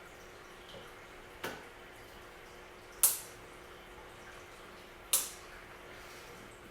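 Three short, sharp clicks or taps, about one and a half, three and five seconds in, the last two the loudest, over a faint steady hum.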